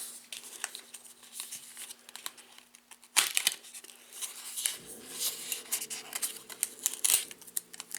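Cardboard trading-card hanger box being torn and pried open by hand: crinkling, rustling and tearing of the packaging, with a louder tear about three seconds in.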